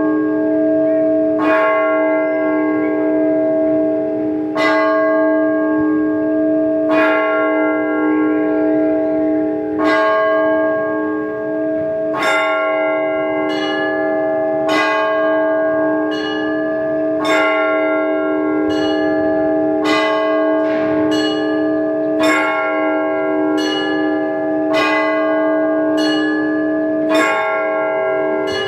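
Orthodox church bells rung by a bell ringer. The deeper bells hum on steadily while smaller bells are struck over them: slowly and unevenly at first, then at a steady stroke about every second and a bit from midway on.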